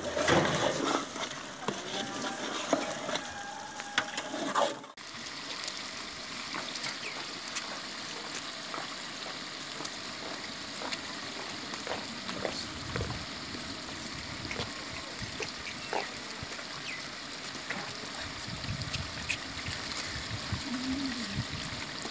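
Chicken curry simmering and sizzling in a large steel pot, a steady hiss, with occasional light clinks of a metal slotted spoon against the pot. The first few seconds are louder and busier, and the sound changes abruptly about five seconds in.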